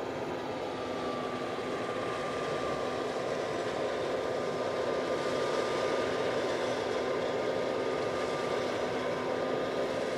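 Combine harvester running steadily during soybean harvest: a constant machine drone with a few steady whining tones over it.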